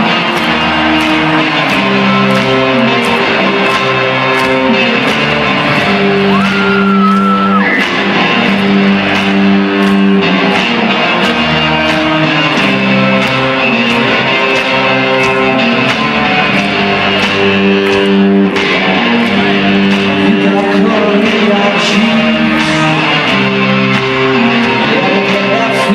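Live rock band playing a song in a large hall: guitar, bass and drums with a steady beat of about two drum hits a second.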